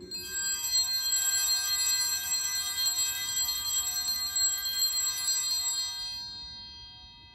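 Altar bells ringing at the elevation of the consecrated host. The bright jangle of many tones lasts about six seconds, then fades away.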